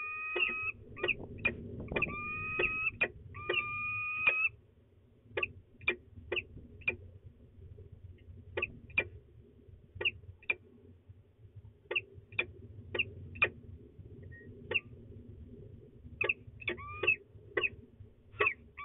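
Pair of peregrine falcons calling to each other: a run of short, sharp chipping calls, one to two a second, broken by drawn-out whining calls in the first few seconds and again near the end. A low rumble runs underneath.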